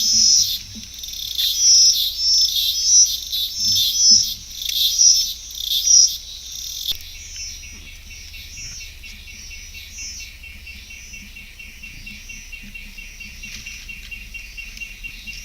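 Wild birds chirping loudly in quick repeated bursts over a background of insect calls. About halfway through the chirping fades, leaving a steady, evenly pulsing insect trill.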